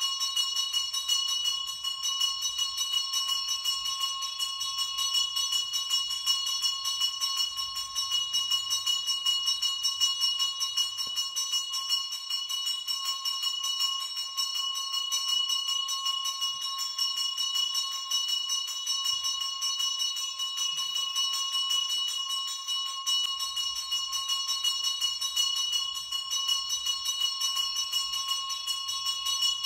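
Brass temple bell rung continuously and rapidly during the aarti lamp offering of a puja, its clear ringing tones sustained without a break.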